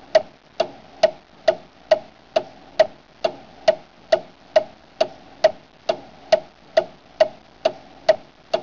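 Clock ticking steadily, a little over two sharp ticks a second, over a faint hiss.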